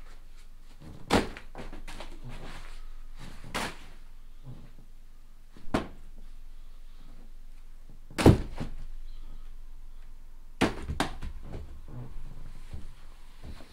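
A series of knocks and thumps indoors, about five sharp ones with lighter clicks between them, like things being set down and doors or cupboards shutting.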